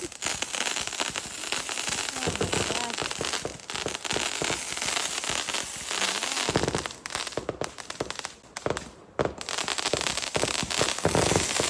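Fireworks crackling: a dense, rapid, irregular run of pops and crackles that thins briefly a little past the middle.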